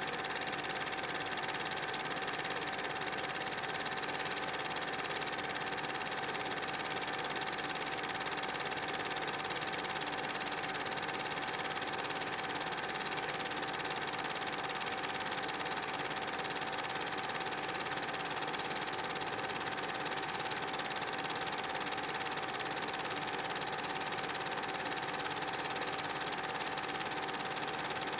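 Steady mechanical whirring with one constant hum that does not change with the pictures: the running noise of a film projector under silent Super 8 footage, not the locomotives themselves.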